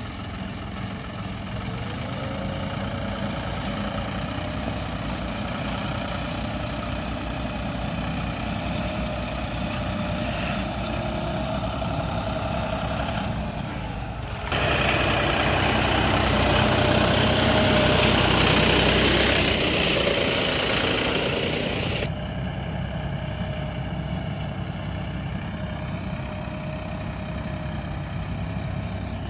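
John Deere 5405 tractor's three-cylinder common-rail diesel engine running steadily under load while pulling a cultivator through wet soil. In the middle there is a louder, harsher stretch of about seven seconds that starts and stops abruptly.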